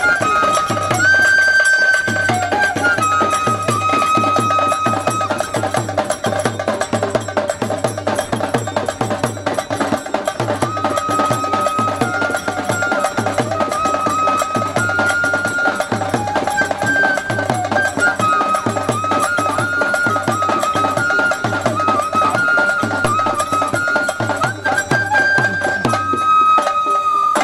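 Traditional folk music for a Kangilu dance: a wind instrument plays a melody of long held notes over a steady, regular drum beat. Near the end the drum drops out, leaving one held note.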